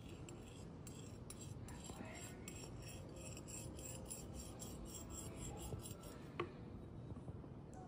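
A thin skewer scraping across a ceramic plate in short strokes, about three a second, as it drags lines of sauce into a zigzag, then one sharp click.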